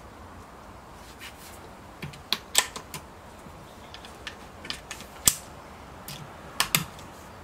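Scattered sharp clicks and clacks from handling the action of a Daystate Huntsman Regal PCP air rifle as it is readied to shoot. The loudest comes about two and a half seconds in, a single sharp clack about five seconds in, and a quick double click near the end.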